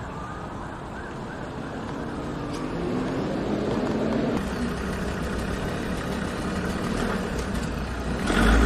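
Road traffic: a vehicle passing along a wet road, its noise swelling towards the middle and easing off. A short, loud, low rumble comes just before the end.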